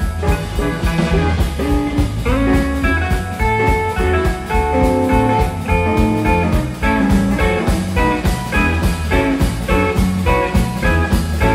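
Electric blues band playing live: an electric guitar carries held melody notes over bass guitar and a drum kit keeping a steady beat. It is an instrumental passage with no singing.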